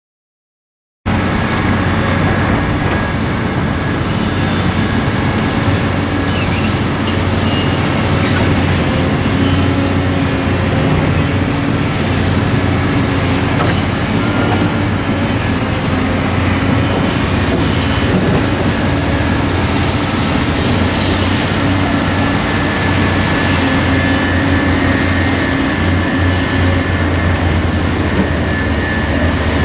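Steady construction-site machinery noise with a low engine hum, starting abruptly about a second in and running on without letup.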